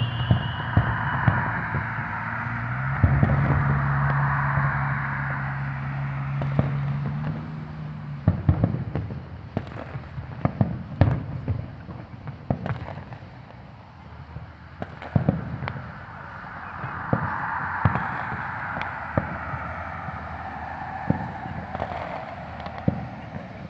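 Aerial fireworks going off: irregular sharp bangs and pops, some in quick clusters, spaced unevenly.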